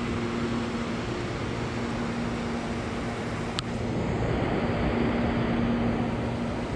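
Steady low motor hum over a constant rushing noise, with one short click about three and a half seconds in.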